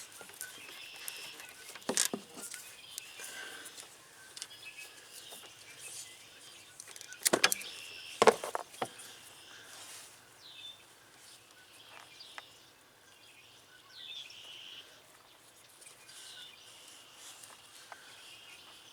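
Birds chirping faintly, with a few sharp clicks and knocks, the loudest about seven and eight seconds in.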